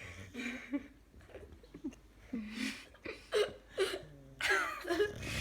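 Boxer dog snoring in his sleep, a rasping snore about every two seconds.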